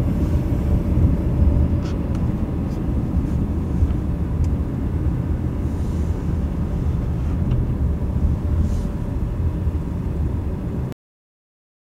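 Steady low rumble of a car heard from inside the cabin as it drives slowly over a rough road, with a few faint ticks and knocks. The sound cuts off suddenly near the end.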